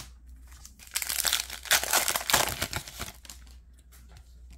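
Plastic wrapper of a trading card pack crinkling as it is handled and opened, loudest from about one to three seconds in, then dying down to softer rustling.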